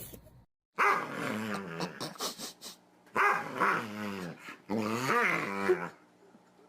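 A dog vocalizing in three long, drawn-out bouts, its pitch rising and falling within each.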